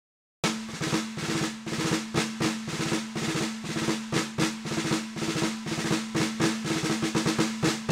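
Music: rapid, steady drumming over a held low note, starting after a brief moment of silence.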